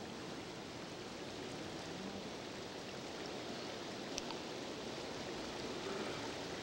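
A fast-flowing mountain river rushing steadily over rocks.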